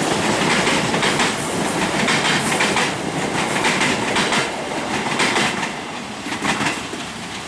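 Train passing close by, its wheels clattering over the rail joints in rapid irregular clicks, fading toward the end.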